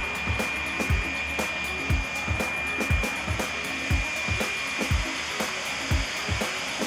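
Folland Gnat's Bristol Siddeley Orpheus turbojet running on the ground at low power: a steady high whine over a rushing noise, with a regular low thump about once a second.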